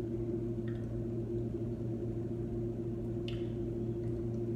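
A steady low electrical hum, with a couple of faint clicks.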